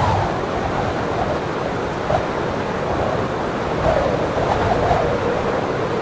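Sound-effects recording of blizzard wind: strong wind blowing steadily, swelling and easing in gusts.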